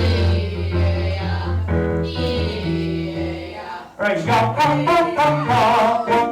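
Music with singing: held chords that shift about once a second, then about four seconds in a livelier passage with a wavering vibrato voice over a steady beat.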